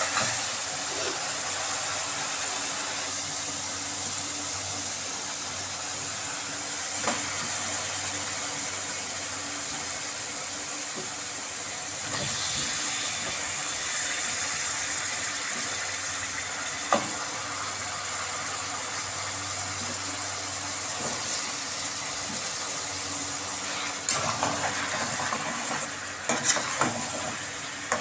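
Chicken and potatoes frying in a pan, a steady sizzling hiss with a couple of single knocks. Irregular stirring and scraping near the end.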